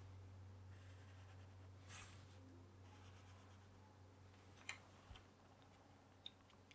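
Faint scratching of a felt-tip pen drawing lines on paper, with a couple of light ticks later on, over a steady low hum.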